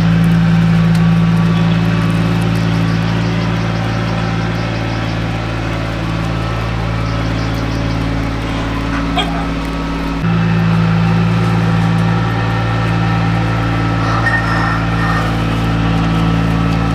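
An engine running steadily at a constant speed, its note dropping briefly and then picking up again about ten seconds in.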